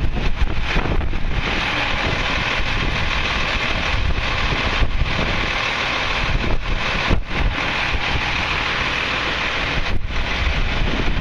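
Strong gusty wind buffeting the microphone: a loud, uneven rumbling roar with a broad hiss that surges and eases.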